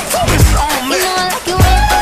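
Dance music playing over loudspeakers: a wavering melody over a fast ticking hi-hat, with deep bass hits that slide down in pitch, twice.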